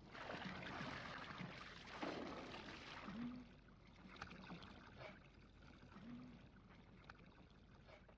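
Water running from a spout in a stone wall and splashing over hands being washed beneath it, loudest for the first three seconds and then fainter.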